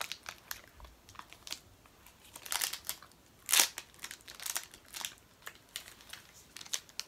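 Foil wrapper of a chocolate almond protein bar crinkling in short, scattered rustles, the loudest about halfway through, with chewing of the bar.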